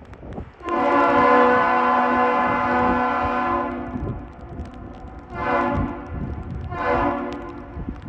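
Lake freighter Edwin H. Gott's horn sounding one long blast followed by two short blasts. The horn is deep and loud, with several tones sounding together.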